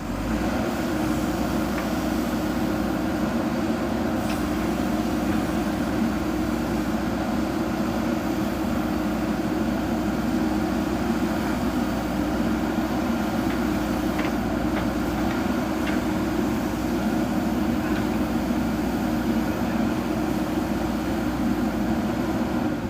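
JCB backhoe loader's diesel engine running steadily, with a few faint knocks.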